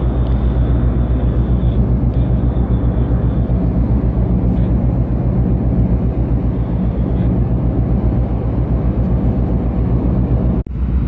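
Deep, steady drone of a large cargo ship's engines and machinery, heard on deck, with a fast, even throb. It cuts out for an instant near the end.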